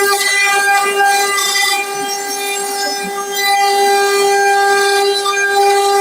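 CNC wood-carving router running, its spindle giving a steady high whine with a rougher cutting noise over it that swells and fades.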